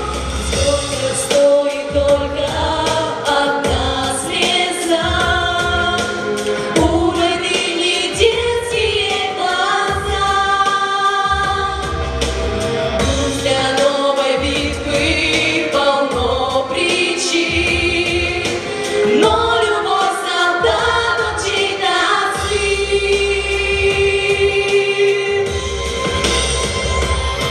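Female vocal group singing a song in harmony into microphones, over accompaniment with a pulsing bass.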